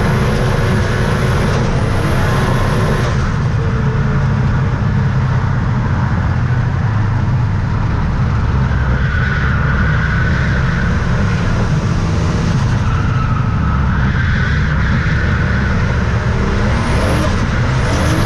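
Car engine running hard at speed, heard from inside the cabin as a loud, steady, deep rumble.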